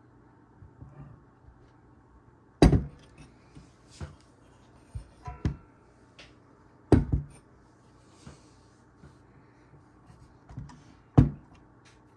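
Sharp metallic knocks and clacks from a Fanatec ClubSport Pedals V3 pedal set being handled and its pedals worked by hand. There are three loud knocks, about two and a half, seven and eleven seconds in, with lighter clicks between them.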